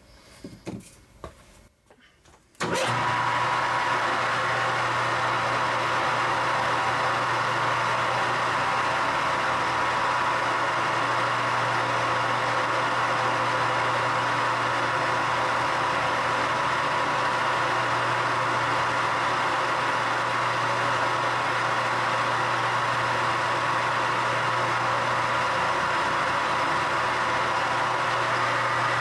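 An electric motor switches on suddenly a little under three seconds in and runs at a steady speed with a constant hum and whine, spinning a 3D-printed knob on its arbor for polishing.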